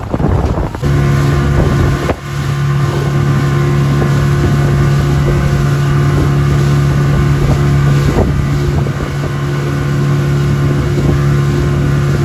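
Outboard motor driving a small open fishing boat at speed, a steady drone that comes up about a second in and holds even, with wind on the microphone.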